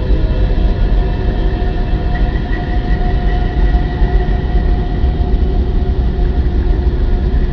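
Sonification of space data: a loud, steady low rumble with several faint held tones above it.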